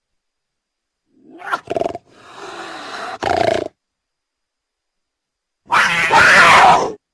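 Cougar (mountain lion) vocalizing in three separate calls. There is a short pair of calls starting just over a second in, then a louder, harsh call near the end, each set apart by dead silence.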